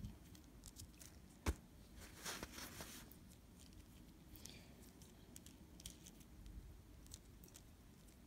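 Faint handling noises from a small plastic toy motorcycle turned in the fingers: a sharp click about a second and a half in, a short scraping rustle just after, then scattered light ticks.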